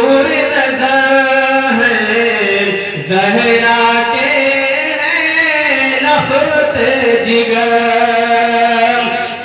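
A man singing a naat (Urdu devotional poem) through a microphone, drawing out long held notes with gliding melodic turns. There is a short break for breath about three seconds in.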